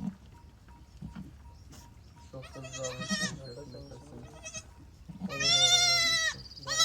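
Sheep bleating: a shorter wavering bleat about two and a half seconds in, then a long, loud bleat about five seconds in.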